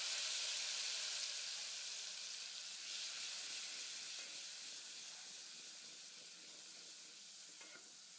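A watery paste of red chilli powder, turmeric and garam masala sizzling in hot oil in a pot, a steady hiss that gradually dies away as the water in the paste boils off.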